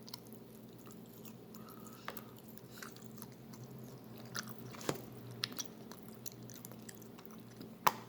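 A person chewing and eating a breakfast of eggs, rice, spam and cornbread close to the microphone, with scattered small mouth and utensil clicks over a faint low steady hum.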